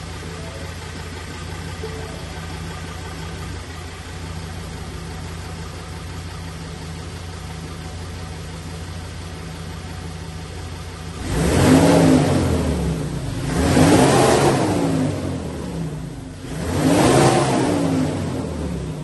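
Ford Ranger PX's 3.2 L five-cylinder turbodiesel idling steadily through its exhaust, then blipped three times, each rev rising and falling in pitch.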